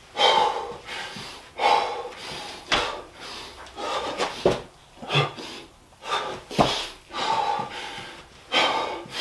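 A man breathing hard through a set of burpees: heavy, forceful breaths about every second, with a few short dull thumps as he drops to the floor and jumps.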